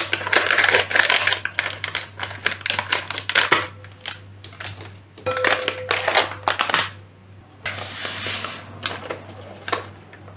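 Scissors snipping open foil-lined jelly powder sachets, the packets crinkling and rustling as they are handled. Near the end comes a steadier rushing hiss as the powder is emptied into a glass bowl.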